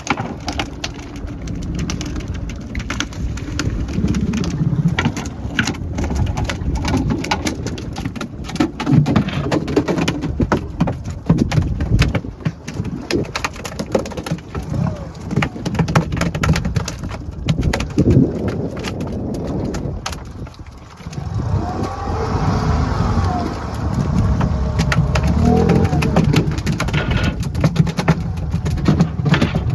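A fishing boat's motor running steadily at sea, with many sharp knocks and clatter over it.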